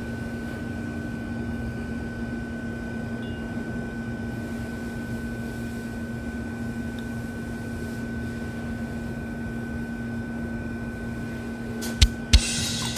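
Steady mechanical hum with a constant low tone and a fainter high tone over a low rumble, and a few sharp knocks near the end.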